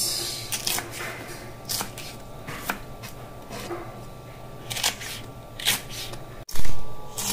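Kitchen knife slicing fresh red chilies on a wooden cutting board: separate sharp strikes of the blade on the board, irregular, about one a second. A much louder knock comes a little before the end.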